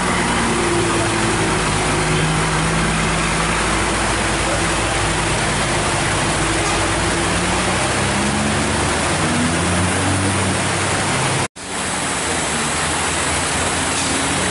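Heavy rain hissing steadily on the road, with a truck's diesel engine pulling low and uneven underneath as it climbs the steep hairpin. The sound cuts out for an instant about eleven and a half seconds in.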